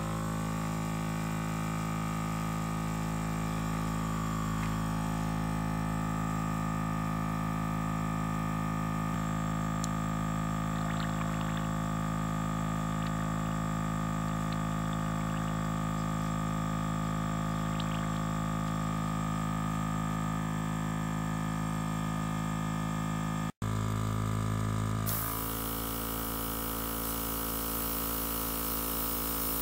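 KKMoon mini airbrush compressor running with a steady electric motor hum, with a few light clicks from handling the airbrush. About 25 seconds in, a hiss of air spraying from the dual-action airbrush joins the hum.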